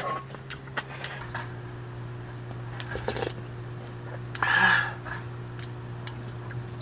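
Faint clinks of a metal spoon against a stew pan and a small bowl as hot broth is scooped out, with one short, loud liquid burst about four and a half seconds in as the broth is taken up, over a steady low hum.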